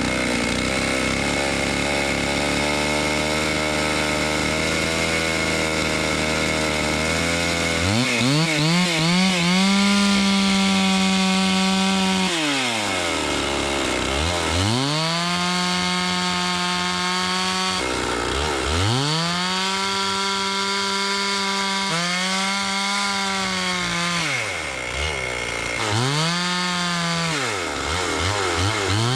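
Two-stroke gas chainsaw ripping lengthwise through a log. For the first eight seconds or so it runs steadily at a lower speed. It then revs up to full throttle and bogs down and recovers about five times as the throttle is eased off and squeezed again through the cut.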